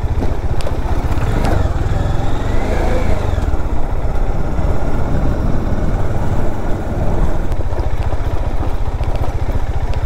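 Bajaj Dominar 400's single-cylinder engine running at low revs with a rapid, steady pulse as the motorcycle is ridden slowly over a rough, broken stony track.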